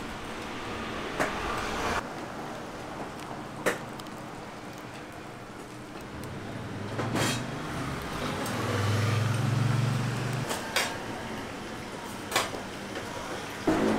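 Street traffic noise with a motor vehicle passing, its engine hum swelling and fading in the second half, and a few sharp knocks scattered through.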